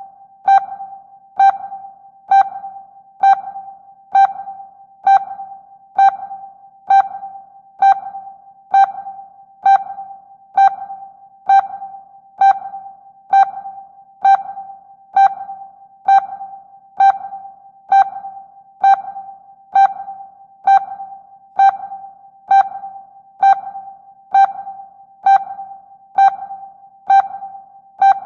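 Sonar pings: a single mid-pitched tone struck about once a second at an even pace, each ping fading quickly with a short ringing tail.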